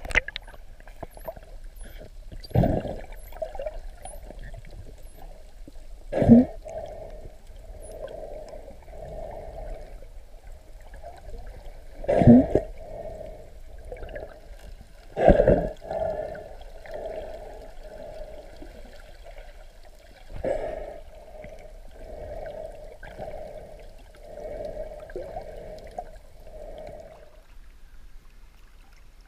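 Muffled underwater water noise against the camera: a dull rushing that pulses about once a second, with several louder surges. A few faint, very high, short chirps in the first few seconds are dolphin whistles.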